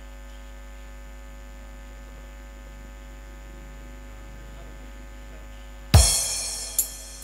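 Steady electrical mains hum from the sound system, a low buzz with many fixed overtones. About six seconds in, a single loud drum-and-cymbal crash opens the backing music and rings away over about a second.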